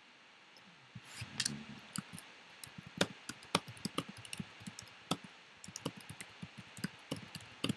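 Typing on a computer keyboard: quick, irregular key clicks, starting about a second in after a brief duller knock.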